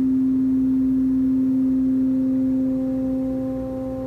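Elektron Digitone FM synthesizer holding one steady note that starts as a pure sine tone. As the modulator's level is turned up, FM sidebands join as higher tones, the first about a second in and more near the end, so the tone grows brighter.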